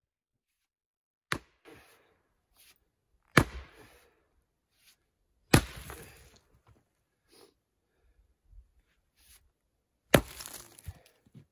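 Mattock striking rocky ground in four sharp blows, the first three about two seconds apart and the last after a longer pause near the end. Each blow is followed by a short rattle of loosened dirt and debris.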